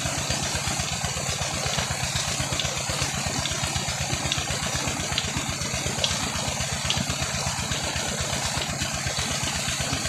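Tubewell pump engine running steadily with a rapid, even low thudding, over the constant rush of water pouring from the outlet pipe and splashing onto the bed.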